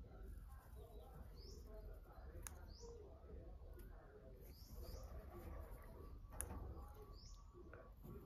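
Faint pencil strokes on textured drawing paper, with a small bird chirping short high notes every second or two and two sharp clicks.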